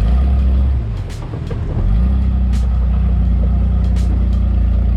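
Off-road vehicle engine running under load, easing off about a second in and picking back up about two seconds in, with scattered knocks and rattles from the vehicle.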